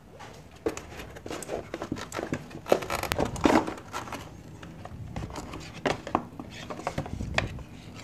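Scattered scrapes, light knocks and rustling as a mechanical keyboard and its cable are lifted out of a cardboard box.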